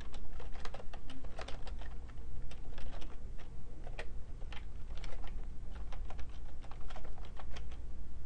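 Typing on a computer keyboard: a fast, uneven run of keystroke clicks, over a steady low hum.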